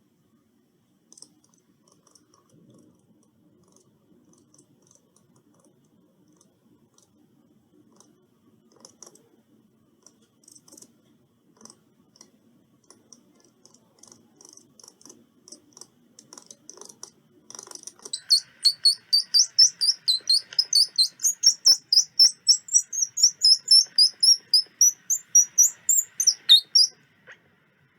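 Squirrel calling: after faint scattered clicks, a fast run of loud, high-pitched chirps, several a second, starts about two-thirds of the way in and stops shortly before the end.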